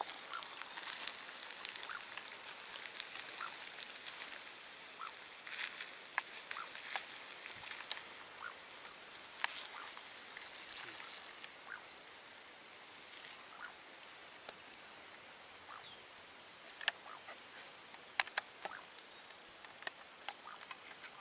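Scattered clicks and scrapes of a utensil in a frying pan and against a plate as fried cuy is lifted out and served, over a faint steady high hiss.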